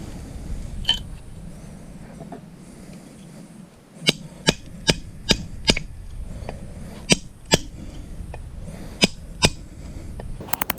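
Sharp knocks, mostly in short runs: five evenly spaced about 0.4 s apart a few seconds in, then two pairs, and a quick rattle of faster clicks near the end, over a low rumble.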